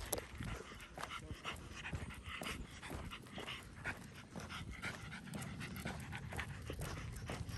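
Dog panting quickly and steadily, about two or three breaths a second.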